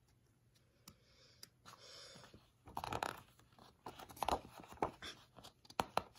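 Sheets of printer paper being handled and turned over on a wooden table: a soft sliding rustle, then a run of short paper crackles and taps.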